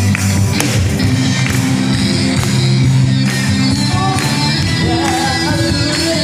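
Music with singing over a steady bass line, a voice line coming through from about four seconds in.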